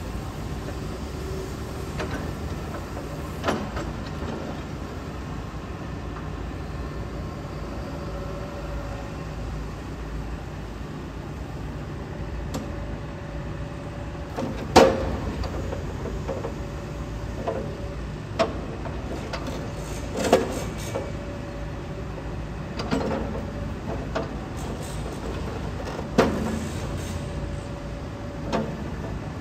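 Hitachi ZAXIS 210K hydraulic excavator's diesel engine running steadily, with a faint tone coming and going. Several sharp knocks sound through it, the loudest about halfway through.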